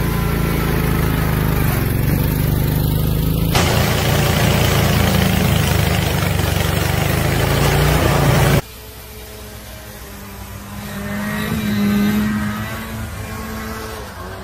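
Garden tractor engines running under load across three cut-together clips. About three and a half seconds in, a louder steady rush joins the engine as a tractor-mounted snowblower throws snow. About eight and a half seconds in, a quieter engine rises in pitch and level as a tractor plows snow.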